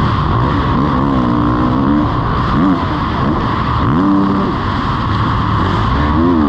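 Kawasaki KX450 single-cylinder four-stroke motocross engine revving up and dropping off again and again as the throttle is worked, heard close up from the rider's helmet over a steady rushing noise.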